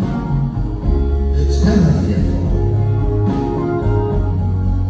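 A live band playing a slow ballad, heard from the audience, with a strong bass line under sustained chords.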